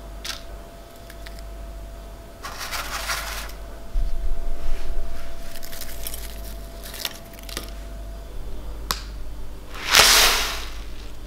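Crisp rustling and crunching as granola and coconut flakes are handled over a bowl of yogurt, with a few sharp clicks. About ten seconds in comes a short, loud hissing rattle of dry red lentils spilling onto a hard surface.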